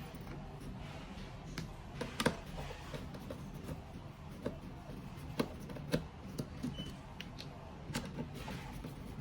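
Scattered light clicks and taps of a screwdriver, small screws and the plastic casing being handled during disassembly of a fusion splicer, over a low steady hum.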